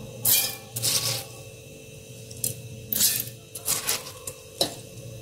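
A spoon scraping and clinking against a stainless-steel mixer-grinder jar as soaked raw rice is tipped in: a series of short scrapes.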